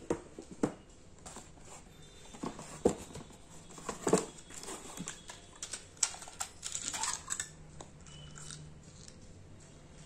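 Unboxing handling sounds: a cardboard box and its clear plastic insert being shifted and set down, with a few sharp knocks and clicks. Plastic packaging rustles and crinkles about six to seven seconds in.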